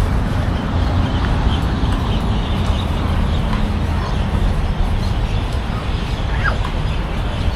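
Steady city street noise: a continuous low rumble with faint scattered higher sounds.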